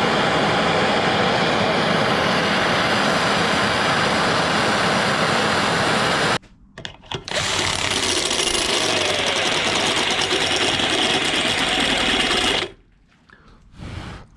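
A power drill running in two long, steady bursts with a short break between them, drilling out a seized sludge trap plug in a motorcycle crankshaft.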